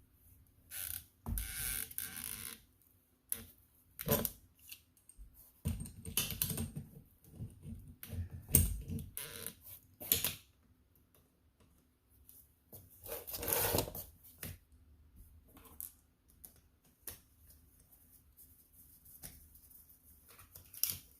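Irregular clicks, taps and short scraping rustles from hands and tools working on the wiring at a pool pump motor's terminals, with quiet gaps between.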